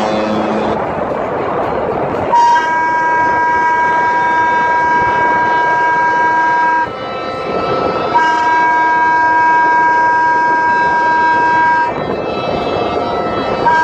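Ship's horn sounding long, steady blasts. One starts about two seconds in and lasts about four and a half seconds, a second starts about eight seconds in and lasts nearly four seconds, and a third begins right at the end. These are departure signals as the cruise ship leaves port, over a steady rushing background of wind and water.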